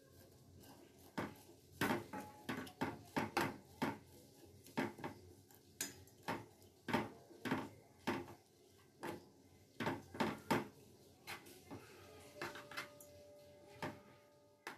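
A metal spoon clinking and scraping against a metal cooking pot while stirring, in sharp, irregular knocks about twice a second.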